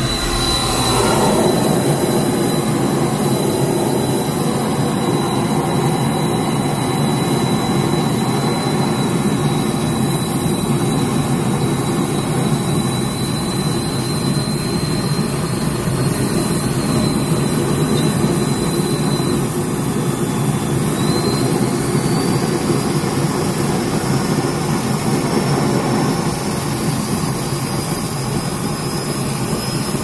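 1992 Clean Burn CB2000 waste oil furnace burner running on used motor oil with its oil pressure turned up: a loud, steady rushing noise of blower, air-atomizing nozzle and open flame. It swells over the first couple of seconds, and a thin high whistle runs over it, stepping up in pitch about two-thirds of the way through.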